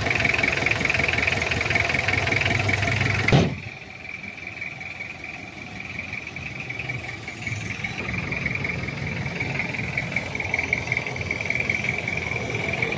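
Toyota 2C four-cylinder diesel engine idling steadily after its injection pump's idle speed has been set, with a steady high whine over a low rumble. About three and a half seconds in there is a sharp click and the engine sound drops much quieter for the rest.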